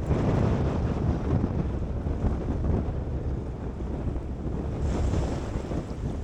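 Strong wind buffeting the microphone on a boat at sea, with the wash of waves underneath: a steady low rumbling rush.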